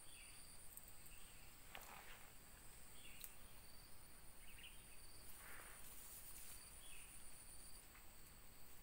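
Very faint outdoor ambience: a steady high insect buzz that stops about two-thirds of the way through, with short faint chirps every second or two and a couple of soft rustles.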